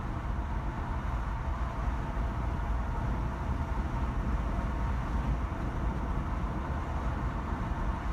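Steady low rumble of a car being driven: tyre and engine noise with no distinct events.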